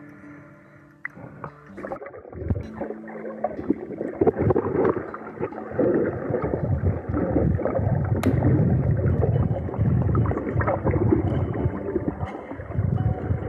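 Muffled underwater sound from a camera held below the surface: water churning and bubbling against the housing as the snorkeler swims, growing louder about two seconds in.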